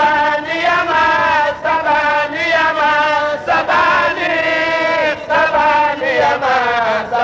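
A man chanting an Arabic devotional poem (qasida) solo, in long held notes that waver and bend in pitch, with short pauses for breath.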